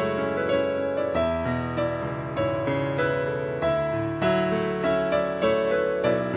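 Slow, gentle keyboard music: piano-like notes and chords struck about once or twice a second, each ringing and fading.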